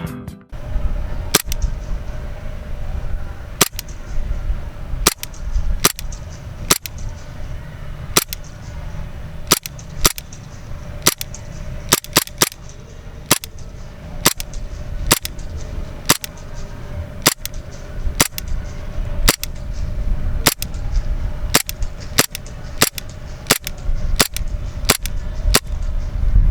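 WF M92 Beretta airsoft blowback pistol fired semi-automatically, about thirty sharp cracks at an uneven pace of roughly one a second, sometimes two close together, over a low rumble of wind on the microphone.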